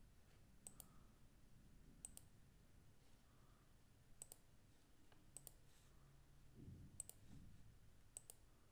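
Computer mouse clicking: about six pairs of quick, light clicks, roughly one pair every second or so, over faint room tone.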